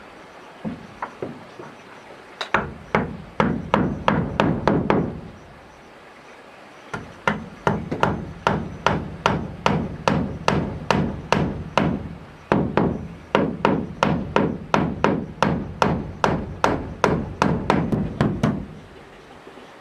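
Hammer blows on wood, in three runs of quick, even strikes at about three to four a second, with short pauses between the runs.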